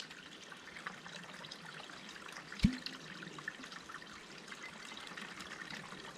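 Water trickling from a squeezed soft pouch through a screw-on filter into a bottle as the pouch is folded down and nearly emptied, with one short knock about two and a half seconds in.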